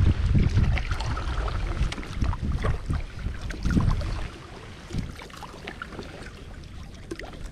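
Paddle blade dipping and pulling through seawater beside an inflatable stand-up paddleboard, with splashes and drips. A low rumble is heavy in the first half and drops away about four seconds in.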